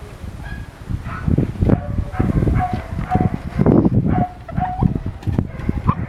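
Dog whimpering in short, high whines over a steady low rumbling noise.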